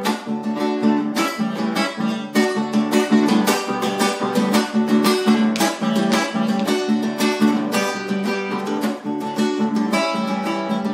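Acoustic guitar strummed in a quick, steady rhythm with no singing: an instrumental passage between sung lines of a song.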